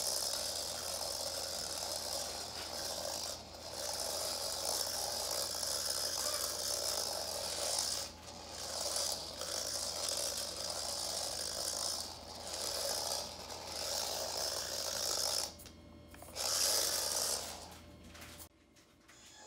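Micro-scale RC car's N10 dual-shaft motor and tiny gear train whining as the car drives, the throttle let off and back on several times with short breaks and a longer pause near the end.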